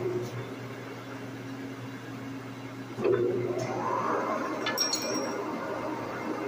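Lucas horizontal boring mill running with a steady hum; about three seconds in it gets louder and a whine rises in pitch for about a second. Near five seconds a few sharp metal clinks ring out as a steel cutter is picked up off the workpiece block.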